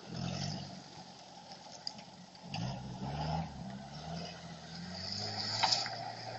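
UAZ-469 engine revved in two short blips, at the start and about two and a half seconds in, then settling to a steady run, on a test run after repair. A short sharp click near the end.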